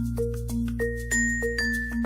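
Background music: a bell-like melody of short notes over held bass notes, with a quick, steady beat.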